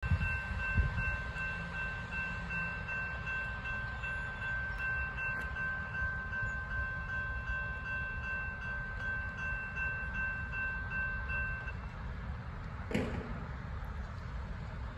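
Railroad grade-crossing bell ringing steadily while the crossing gates lower, then falling silent about twelve seconds in, once the gates are down. A single knock comes about a second later, over a low rumble.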